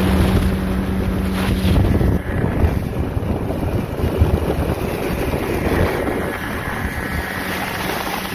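Mercury outboard motor running at speed as the boat planes across the water, with a steady engine drone under heavy wind buffeting the microphone and the rush of water. The engine drone is plainest at the start and again near the end, and sinks under the wind noise in between.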